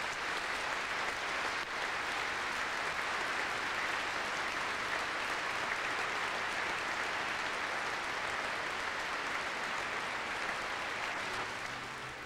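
Large congregation applauding steadily inside a vast stone church, the clapping dying away near the end.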